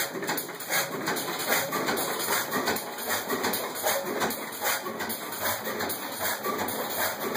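Superior gas engine running under load, driving a rod-line pumping power: a quick, somewhat uneven train of knocks and clanks.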